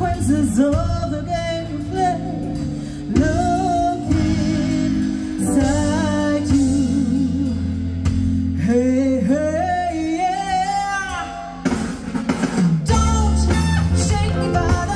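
Music: a song with a singing voice over guitar and bass.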